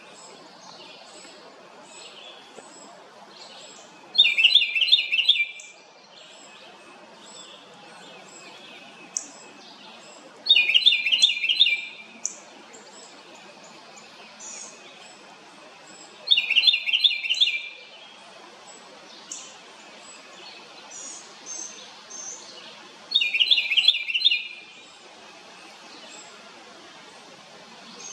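House wren singing loudly: four rapid, trilling songs about six seconds apart, each about a second and a half long, with fainter chirps in between.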